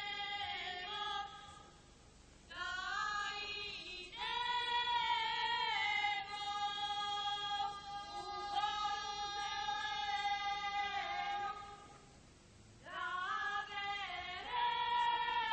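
Women's choir singing a southern Serbian folk song in long, drawn-out phrases, with a short break about a second and a half in and another near twelve seconds in.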